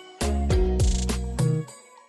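Background music with a heavy bass line and a steady drum beat, in an Afrobeat or reggae style; the beat drops out briefly twice.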